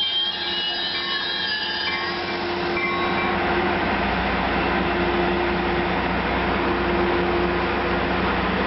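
Caltrain passenger train: high-pitched wheel squeal dying away over the first two seconds, then the steady rumble and hum of the train.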